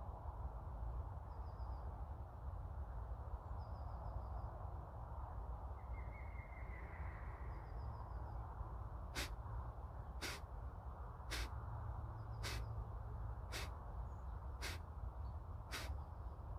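Kapalbhati breathing: short, forceful nasal exhalations, about one a second, beginning about halfway through, over steady low background noise.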